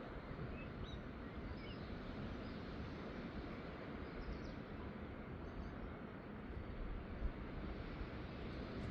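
Steady seaside outdoor rush, strongest in the low range, with a few faint, short bird chirps in the first half.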